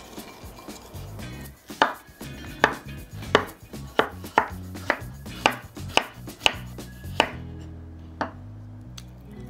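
Kitchen knife slicing a cucumber on a wooden cutting board: about a dozen sharp knocks of the blade meeting the board, slightly uneven at a little under two a second, starting about two seconds in and ending about a second before the close.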